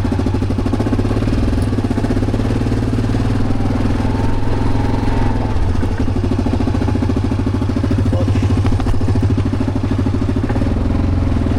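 ATV engine running steadily just after being started, with an even low pulsing and no revving.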